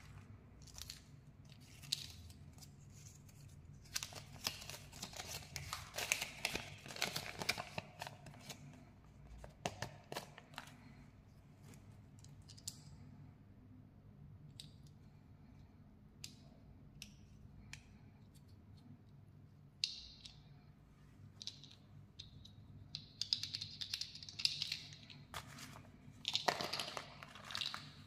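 Hands handling small plastic toy pieces and paper from Kinder Joy eggs: crinkling and rustling in two spells, a few seconds in and again near the end, with scattered small clicks between.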